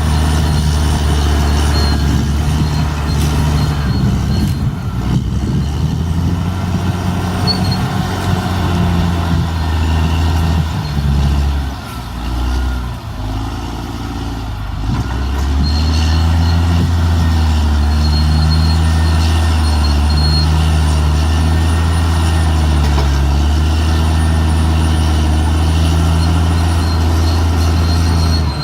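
Caterpillar D6R XL bulldozer's diesel engine working hard, with a deep steady drone. The engine note drops and wavers for a few seconds around the middle, then settles back to a steady pull.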